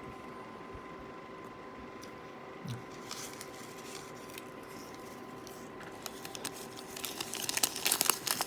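Gum wrapper paper and foil being crinkled and unfolded by hand: a few scattered crackles at first, becoming dense and louder near the end. A faint steady electrical hum runs underneath.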